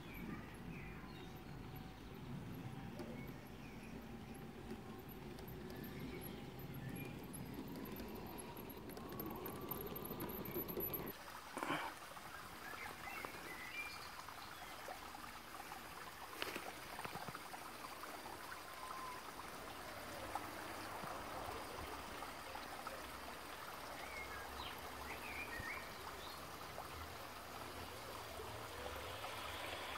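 A garden-scale model train rumbling along its track, cutting off abruptly about 11 seconds in, with water trickling in a small stream.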